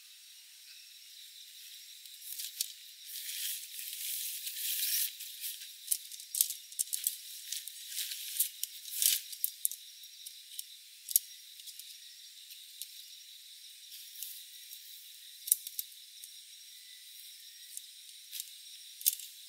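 Tent fabric and gear rustling, then the sharp clicks of shock-corded tent pole sections being slotted together. The clicks come thickly at first and then one every second or few. The sound is thin, with all the low end cut away.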